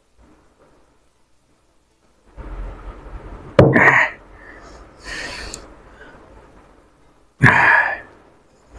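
A man reacting to a gulp of neat vodka: heavy breathing, then a loud strained cry about a third of the way in with a sharp knock of the glass set down on the table, a hissing breath out, and a second loud cry near the end, all from the burn of the spirit.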